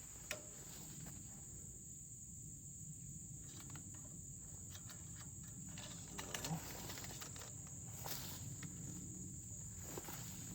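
Steady high-pitched chorus of crickets trilling, with faint scattered clicks and rustles.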